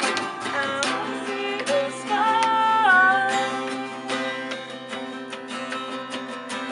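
Acoustic guitar strumming a steady rhythm in a wordless stretch of the song, with a long held note, bending slightly, from about two seconds in.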